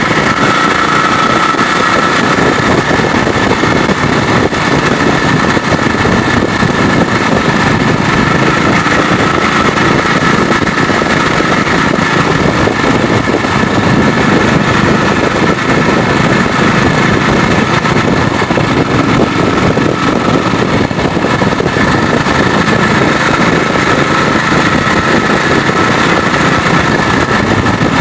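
BSA 441 single-cylinder four-stroke motorcycle engine running steadily under way at road speed, heard close up from the handlebars.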